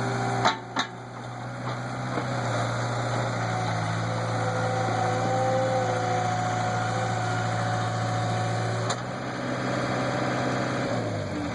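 Skid steer engine running steadily, with two sharp knocks about half a second in and another near the end; the engine note drops and fades right at the end.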